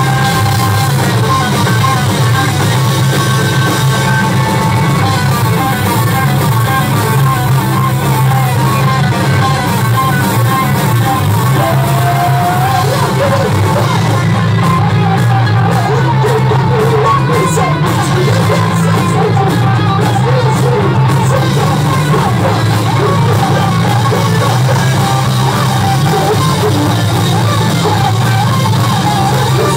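A live band playing loud rock music, with guitar and singing. The highest sounds drop away for a few seconds around the middle.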